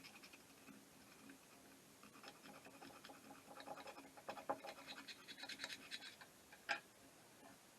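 Faint scraping and light clicks of small carburetor parts being handled and taken apart, with one sharper click near the end.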